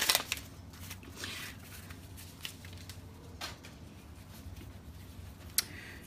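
Paper rustling as sublimation transfer paper is peeled off freshly pressed neoprene pop sleeves: a louder tear-like rustle at the start, then a few soft rustles, and one sharp click near the end.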